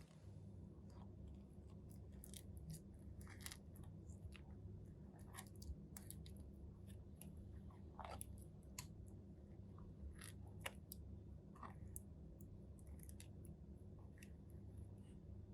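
Crunchy slime being worked by hand, giving scattered small crackles and clicks at irregular intervals over a steady low hum.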